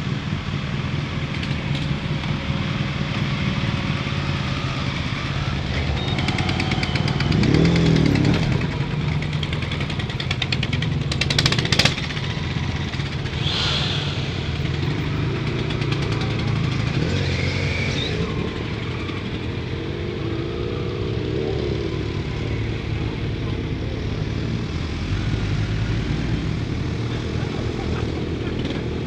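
Several motorcycles rolling slowly past one after another, engines running at low revs, with a louder pass about eight seconds in. A sharp click sounds about twelve seconds in.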